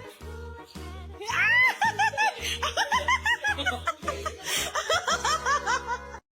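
Background music with a steady bass beat, joined about a second in by a long run of rapid, high-pitched laughter that lasts until near the end. Both stop abruptly just before the end.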